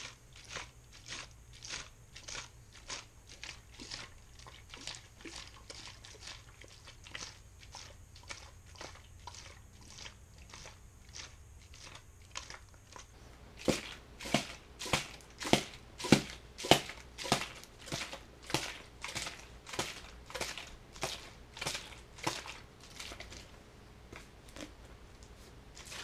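Clear plastic water bottle squeezed and crinkled in the hand over and over, about one and a half crunches a second. About halfway through, the crunches become louder and crisper.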